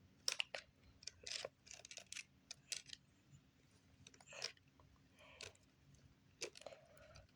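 Faint, irregular clicks and light scrapes of small RC car parts being handled and fitted together by hand.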